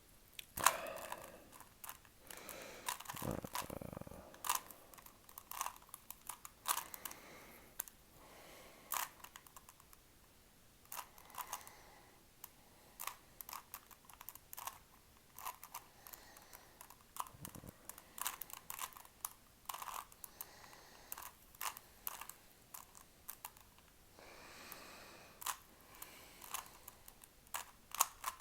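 Rubik's cube being turned quickly by hand: irregular runs of plastic clicks and clacks as the layers are rotated. A low thump comes about three to four seconds in.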